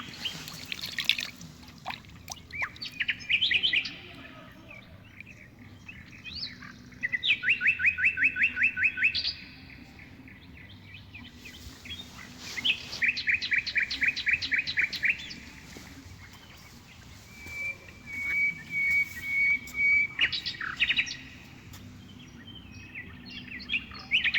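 A small songbird singing fast trills of rapid repeated notes, each about two seconds long, every few seconds, with short single calls between them.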